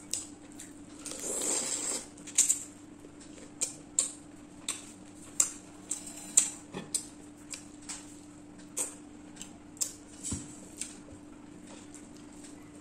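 Close-miked eating sounds from prawn curry with rice: irregular wet mouth smacks and chewing clicks, with a longer noisy slurping or rustling stretch about a second in.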